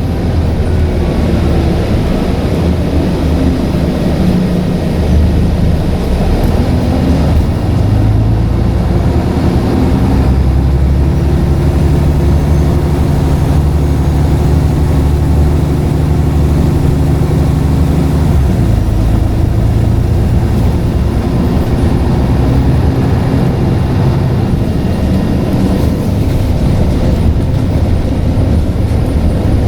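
Scania N94UD double-decker bus engine running under way, its pitch rising over the first several seconds, holding steady, then dropping sharply about two-thirds of the way through as the ZF automatic gearbox shifts or the load comes off.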